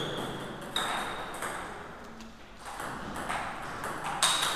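Table tennis balls bouncing, with sharp, high-ringing pings: one about a second in and a louder one near the end, with fainter knocks between them.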